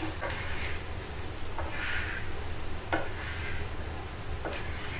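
Chickpeas sizzling in hot oil in a steel frying pan while a wooden spatula stirs them, with a few light knocks and scrapes of the spatula against the pan.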